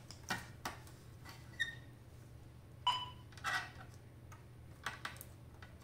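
Scattered small clicks and knocks of plastic and metal parts being handled and fitted into a Terumo TSCD II tube welder's housing, two of them with a short ringing clink, the loudest about three seconds in, over a low steady hum.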